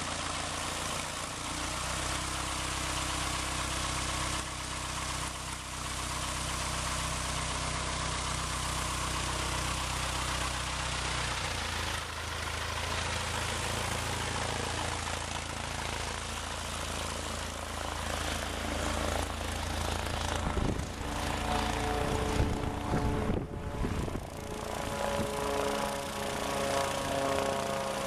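Single-engine propeller airplane's piston engine running at taxi power as the plane rolls past and away. Its pitch shifts about eleven seconds in and climbs over the last few seconds, with some low rumbling buffets shortly before.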